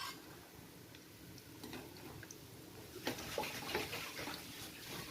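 Breaded chicken balls deep-frying in hot oil: a faint sizzle with scattered small pops and crackles, a little busier from about three seconds in.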